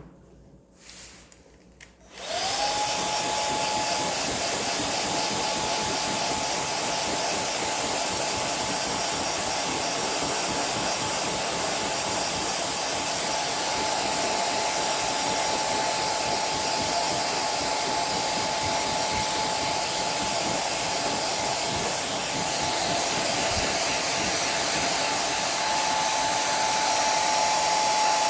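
Hair dryer switched on about two seconds in. Its motor whine rises briefly as it starts, then it blows air steadily.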